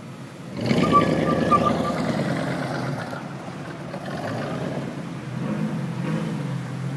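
A car engine revs up about half a second in and runs hard as the car pulls away, then slowly eases off.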